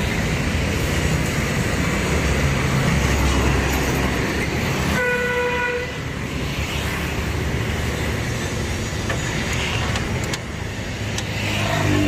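Steady low rumble of engine and street traffic, with a vehicle horn sounding once for nearly a second about five seconds in.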